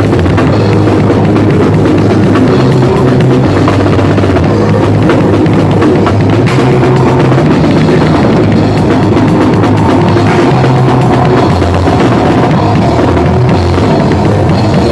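Grindcore band playing at full volume in rehearsal: drum kit pounding under heavy, dense guitar and bass, the low bass notes shifting every second or so.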